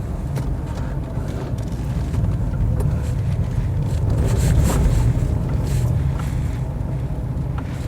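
Car cabin noise while driving: the engine and tyres making a steady low rumble, with a few faint clicks and rattles.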